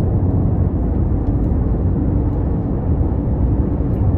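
Steady cabin noise of a car cruising at freeway speed: an even, low rumble of tyres and engine heard from inside the car.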